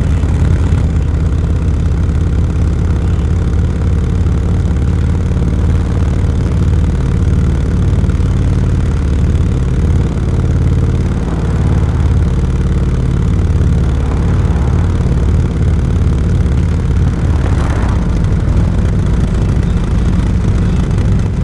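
Touring motorcycle engine running steadily, heard from the rider's seat behind the windshield.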